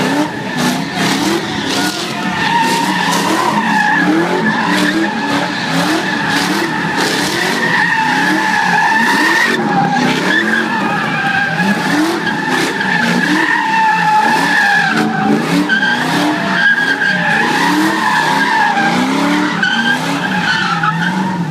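Car spinning donuts: its tyres squeal steadily without a break while the engine revs in repeated short rising pulls.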